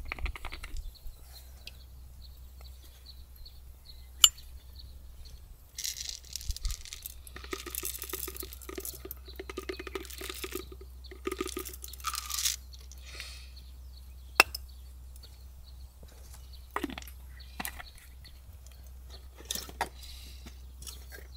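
Coffee beans poured from a plastic canister into a small metal hand coffee grinder, a rattling pour lasting several seconds in the middle, with a few sharp clicks as lids and the grinder are handled.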